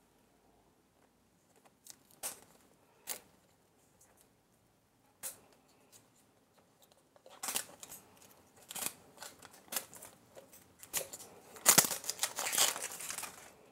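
Plastic wrapping on a toy surprise egg being torn and crinkled. A few sharp clicks come first, then a longer stretch of rustling and tearing that is loudest near the end.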